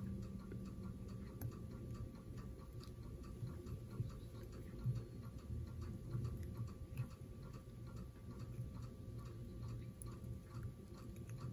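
Faint light ticking and small clicks of a whip finisher being turned to wrap thread around the head of a foam grasshopper fly in a vise, over a low steady hum.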